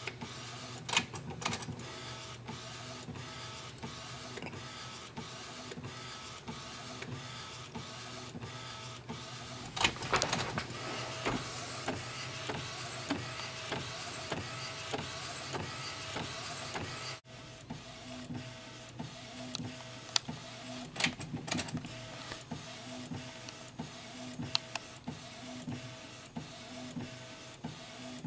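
Epson XP-600 inkjet printer printing a photo: clicks and whirs of the print head carriage over a steady running hum. A louder, noisier stretch partway through cuts off suddenly, and a short whir then repeats at a steady pace.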